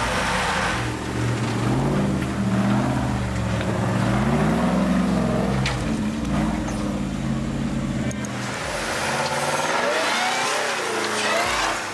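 Off-road Jeep engine revving up and down, its pitch rising and falling repeatedly. About eight and a half seconds in, the deep low end drops away and a higher-pitched revving carries on.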